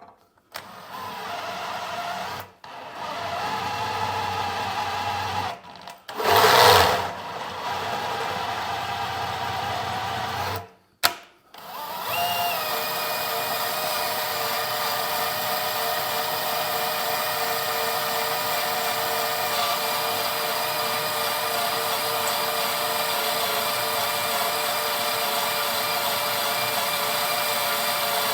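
Electric drill turning a Rotabroach annular cutter as it cuts the large hole in an aluminum oil pan's sump. It starts and stops several times, with one loud rough burst near six seconds, then runs steadily from about twelve seconds in.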